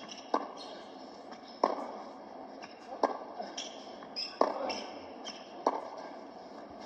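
Tennis rally heard through a television's speaker: five sharp racket strikes on the ball, about one every 1.3 seconds as the two players trade groundstrokes. Short shoe squeaks on the hard court fall between the strikes.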